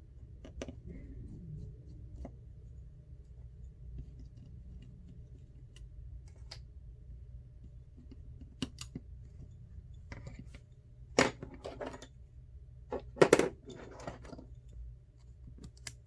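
Small sharp clicks and taps of tools and parts being handled while an iPhone XR is taken apart, scattered at first, with two louder bursts of clatter about eleven and thirteen seconds in, over a steady low hum.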